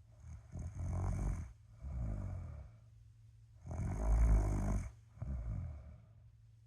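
A person snoring in deep sleep, two breaths in a slow, even rhythm: each breath is a loud snore of about a second followed by a shorter, softer one, repeating about every three and a half seconds. The second snore, about four seconds in, is the loudest.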